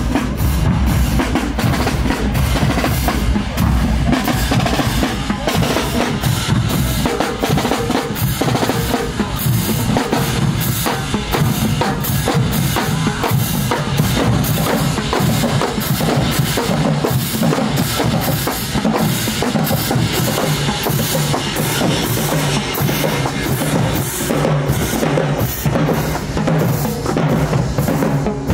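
Marching band drumline playing a marching cadence: snare drums, bass drums and cymbals, with a dense, steady beat throughout.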